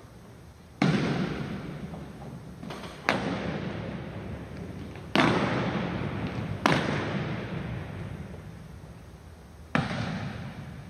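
An unarmed drill team's sharp unison strikes, five of them, one every one to three seconds. Each rings out in a long echo through a large gymnasium.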